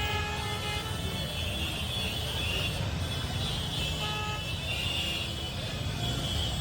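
Steady street din of traffic and crowd, with vehicle horns tooting in short notes near the start and again about four seconds in.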